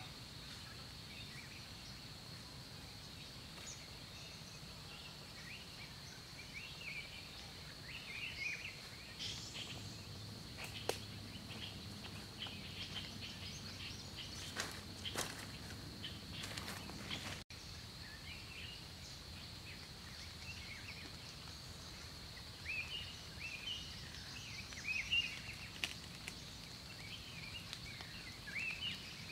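Faint forest ambience: a steady high-pitched drone with scattered bird chirps, and footsteps through leafy undergrowth with a few sharp snaps of twigs in the middle stretch.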